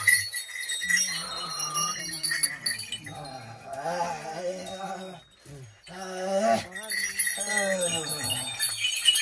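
A jhakri shaman chanting in long, wavering phrases, with a short break about five seconds in, while the small bells on his costume jingle.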